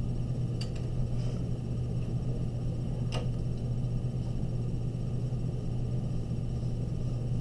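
A steady low hum, with a few faint clicks from pencil work on drawing paper, the clearest about three seconds in.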